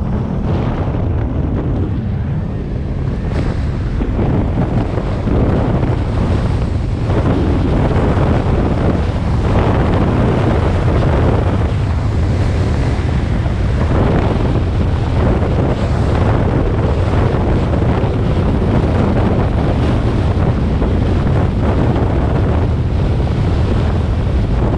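Strong wind buffeting the microphone in steady gusts, over the low rumble of the off-road vehicle the camera rides on.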